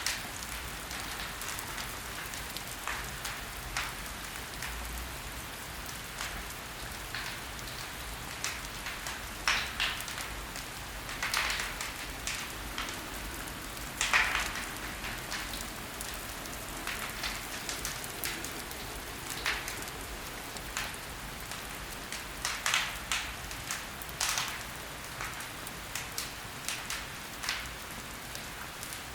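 Logs burning in a fireplace, crackling: irregular sharp pops and snaps over a steady soft hiss, with the loudest pop about fourteen seconds in.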